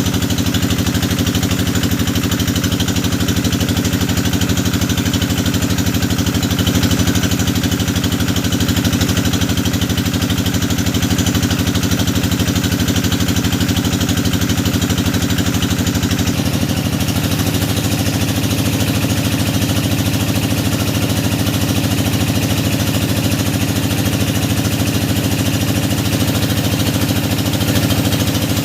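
Engine of a hydraulic deep-well drilling machine running steadily under load; its note shifts slightly about two-thirds of the way through.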